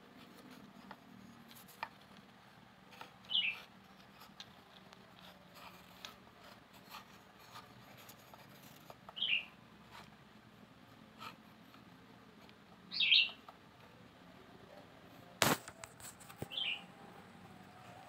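A small bird chirping four times, short high calls a few seconds apart. Light taps and ticks run underneath, with one sharp click late on, the loudest sound.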